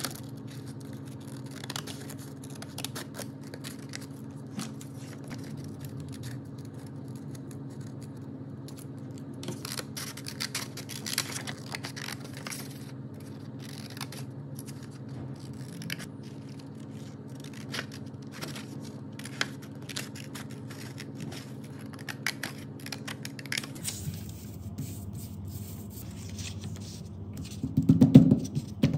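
Scissors snipping through paper, many short cuts in irregular runs over a steady low hum. Near the end comes a louder low rustling thump as hands press paper cut-outs flat onto the sheet, the loudest sound.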